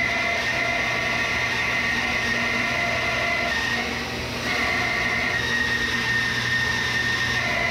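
JET JWBS-14SFX 14-inch steel-frame bandsaw resawing a 13-inch-tall black walnut board, its blade cutting steadily through the wood, with a dust collector running alongside. The steady high whine eases briefly about four seconds in.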